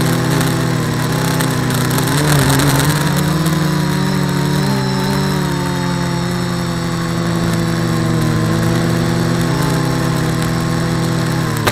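H-frame quadcopter's electric motors and propellers whining steadily, as heard from the camera on the craft, with the pitch shifting as the throttle changes. The motor pitch dips at the very end as it comes down.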